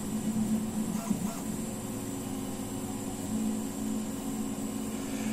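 A steady low electrical or mechanical hum with a faint hiss over it, unchanging throughout.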